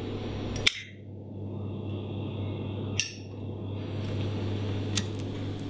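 Flip-top petrol lighter being worked between lightings: three sharp metallic clicks a couple of seconds apart, the first the loudest, as the lid snaps and the wheel is struck, over a steady low hum.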